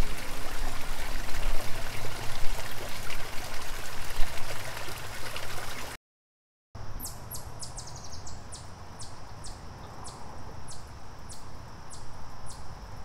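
Running water, a steady rush like a stream or small waterfall over rocks, that cuts off about six seconds in. After a brief silence a bird calls over quieter background, repeating short high notes that slide downward, about once or twice a second, with a quick run of them early on.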